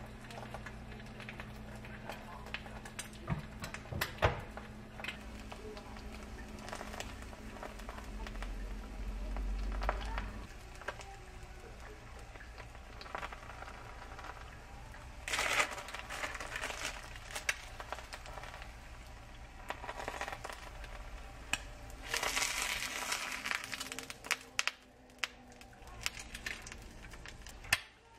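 Kitchen handling sounds: light clicks and knocks with crackling, over a low steady hum that stops about ten seconds in. Two louder stretches of hissing noise come about halfway through and again a few seconds later.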